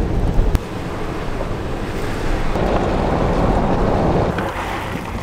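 Wind rushing over the microphone out the window of a moving SUV on a dirt road, over a low rumble from the tyres and road.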